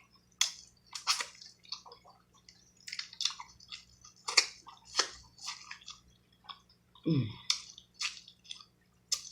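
Close-miked chewing: irregular wet smacking and clicking of a mouth eating seafood boil and noodles. A short falling vocal 'mm' comes about seven seconds in.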